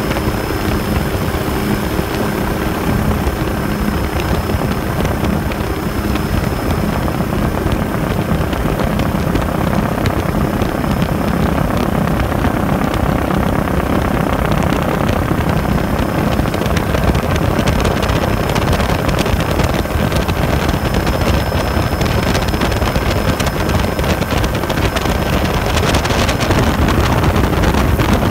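Helicopter in flight: steady rotor and engine noise with a faint high whine, and wind rushing over the microphone that grows stronger near the end.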